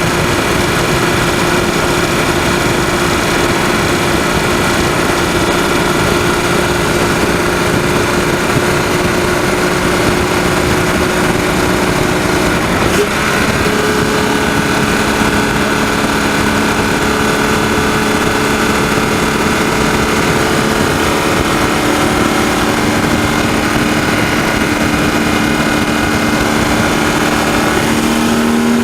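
BMW 130i's 3.0-litre straight-six engine running at speed, recorded close up in the engine bay. Its pitch slowly falls, changes abruptly about halfway through, then begins to rise near the end as the engine picks up revs.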